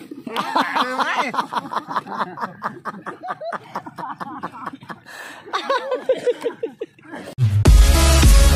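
Laughter: quick, repeated chuckling for several seconds. About seven seconds in, loud electronic dance music with a heavy beat cuts in and becomes the loudest sound.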